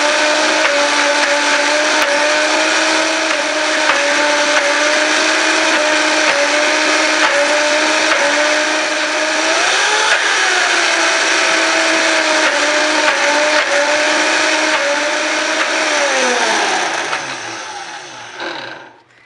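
Vitamix blender running, blending soaked cashews and water into a thick cream; noisy. Its motor pitch rises briefly about halfway through, then falls as the blender winds down and stops near the end.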